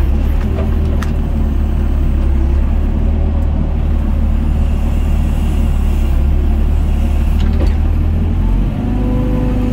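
Doosan DX55 mini excavator's diesel engine running steadily under hydraulic load, heard from inside the cab as the arm swings and works. About nine seconds in, the engine note changes and a steady higher hum comes in.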